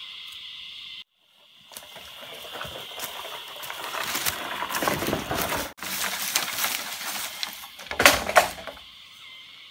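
Steady high insect chirring that cuts off about a second in, followed by rustling and crackling of footsteps through forest leaves and undergrowth, loudest around 8 seconds in.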